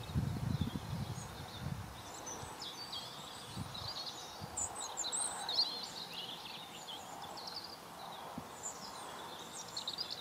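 Small birds chirping and trilling in the background throughout, with a low irregular rustling in the first two seconds that then fades.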